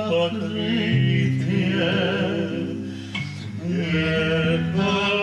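A Russian romance sung by male voices to a nylon-string classical guitar, with long held notes.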